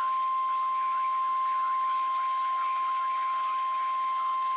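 NOAA Weather Radio 1050 Hz warning alarm tone from a weather radio receiver's speaker: a single steady, unwavering tone. It signals that a warning broadcast, here a severe thunderstorm warning, follows.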